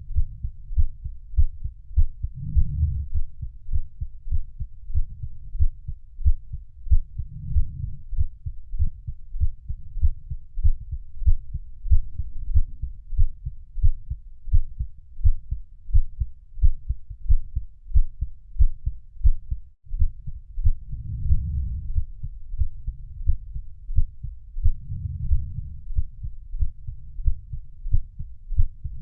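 A heartbeat beating steadily in an even rhythm, heard as deep, muffled low thumps. There is a very brief dropout about two-thirds of the way through.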